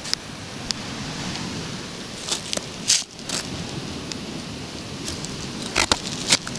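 Pointed toe of a patent-leather high-heeled pump scuffing and knocking against a rough concrete step edge: scattered scrapes and clicks, bunched about two to three seconds in and again near the end, over a steady background hiss.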